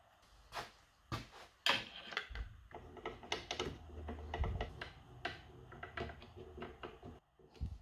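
A run of light, irregular clicks and knocks, as of small hardware and wood being handled, with a faint low hum in the middle.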